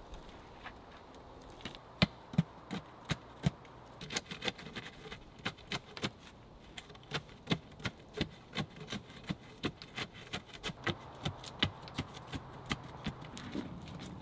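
Repeated short knocks and gritty crunches, about two to three a second, as sandy soil is packed around the base of a wooden pole set upright in a hole. A few heavier, deeper knocks come early on, between two and four seconds in.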